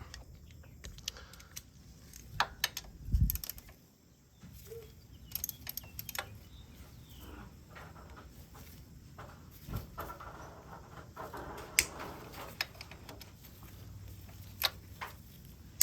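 Scattered metallic clinks and knocks of a wrench working at the bolt on a motorcycle's clutch arm, with a dull thump about three seconds in.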